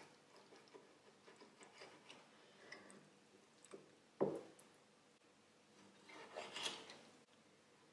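Kitchen knife cutting a halibut steak on a plastic cutting board as the skin and central bone are cut away. Faint taps and small scrapes, a single sharper knock of the blade on the board about four seconds in, and a longer scraping cut near the end.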